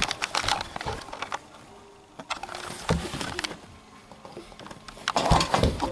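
Handling noise from a handheld video camera held by a small child: clicks, rubbing and knocks on the camera body as it is swung about, with a louder cluster of bumps and rustling near the end.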